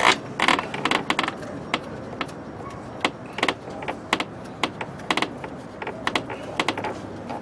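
Hand ratchet clicking in short, irregular strokes as it turns a starter motor mounting bolt loose.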